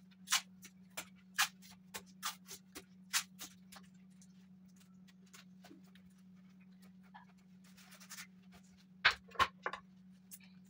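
Sharp clicks and taps of hands working a plastic-wrapped panel and a roll of tape: a quick run of light ticks for the first few seconds, a brief rustle near eight seconds, then three louder knocks near the end, over a steady low hum.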